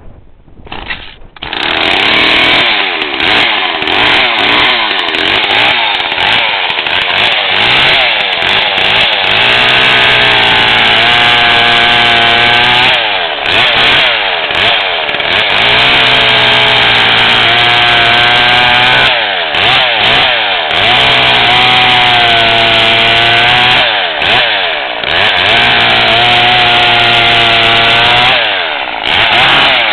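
Homelite Super 2.6 two-stroke chainsaw catching about a second in, then revved up and down over and over, with stretches held at high speed between quick drops in pitch.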